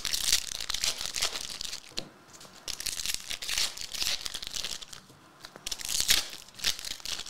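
Foil trading-card pack wrappers being torn open and crinkled by hand, in several bursts of crackling with short pauses between.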